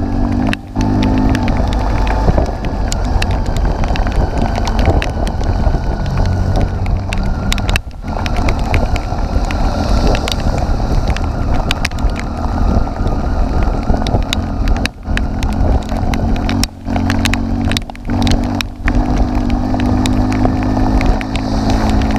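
Heavy rain and hail pelting down, a dense, steady hiss broken by many sharp hits. Motorcycle engines idle underneath, clearest near the start and in the last few seconds.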